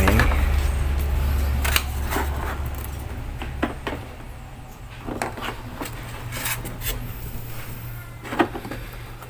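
Scattered light clicks and knocks as a cut honeycomb mesh grille panel is handled and pressed against a car's lower bumper to test its fit. A low vehicle rumble fades out over the first few seconds.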